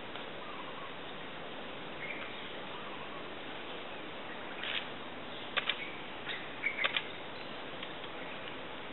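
A few short, high chirps and clicks from small birds, bunched from about halfway to three-quarters through, over a steady background hiss of mangrove ambience.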